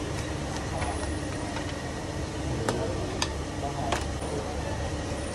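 Busy street background noise with a steady low hum, broken by three sharp clicks in the second half.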